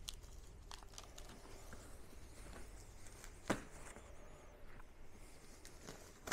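Faint rustling and handling of a plastic-wrapped package as it is gripped and shifted, with scattered light clicks and one sharper knock about three and a half seconds in.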